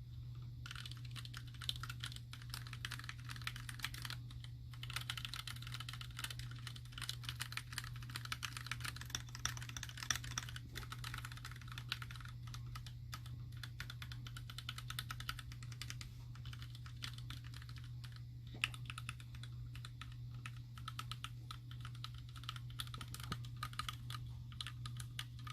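Continuous fast typing on a mechanical keyboard with Gateron Ink linear switches, PBT keycaps and an acrylic Alice-layout case and plate: a dense, uneven stream of key clacks, with a steady low hum underneath.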